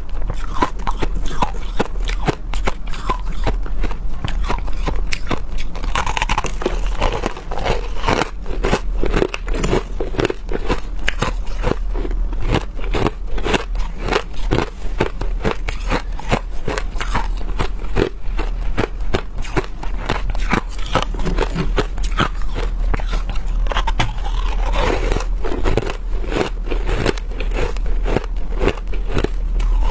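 Hard frozen crushed ice being bitten and chewed close to the microphone: a continuous run of crisp, crackling crunches, many per second.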